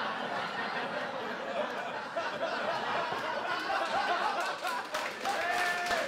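Small audience laughing and chattering, many voices overlapping, with one voice holding a long call near the end.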